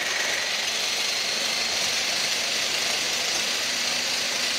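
Hand blender motor running steadily on its mini chopper attachment, the blades chopping parsley, garlic and anchovies in the bowl: an even, loud whirring that does not change.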